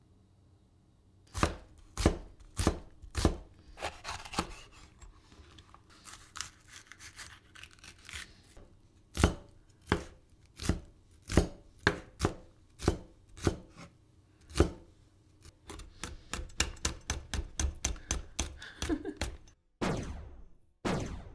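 Chef's knife chopping vegetables on a wooden end-grain cutting board: sharp single cuts against the wood, about one a second, then a fast run of quick small cuts, as when finely slicing a green chili.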